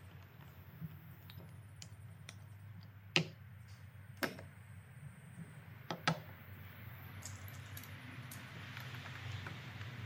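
Clamps clicking and knocking against a wooden block and the tabletop as they are taken off, set on and adjusted: scattered sharp clicks, with three louder knocks about three, four and six seconds in, over a low steady hum.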